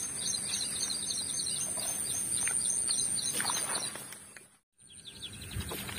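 Birds chirping in quick repeated notes over a steady high-pitched whine. The sound fades out briefly about four and a half seconds in and comes back.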